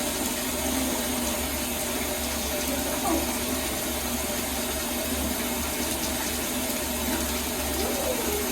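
Water running steadily into a bathtub from the tap.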